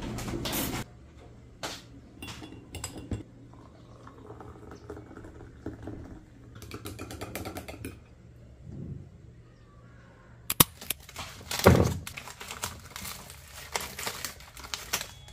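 Small kitchen handling sounds: a steady rush that cuts off abruptly in the first second, then scattered light clicks and taps as a wooden spoon stirs in a ceramic cup, and a louder clatter of sharp knocks with a thud about eleven to twelve seconds in.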